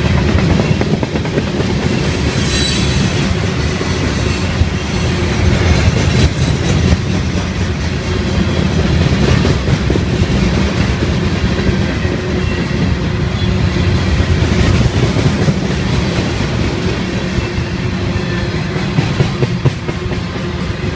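Freight train hopper cars rolling past: a loud, steady rumble of steel wheels on rail with a clickety-clack over the rail joints and a faint wheel squeal.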